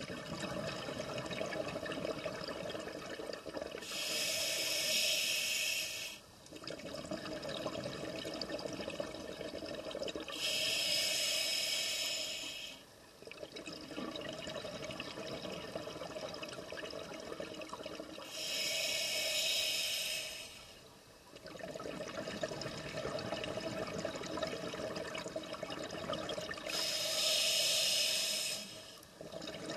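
A scuba diver breathing underwater through a regulator, four breaths in a slow, even cycle about every seven to eight seconds. Each breath has a hiss of about two seconds, a short pause, and then a longer stretch of rushing, bubbling exhalation.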